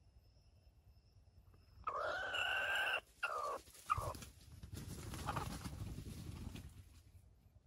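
Red junglefowl rooster crowing once: a short crow of about two seconds in broken phrases, the last falling in pitch. After it come a few seconds of low rustling noise.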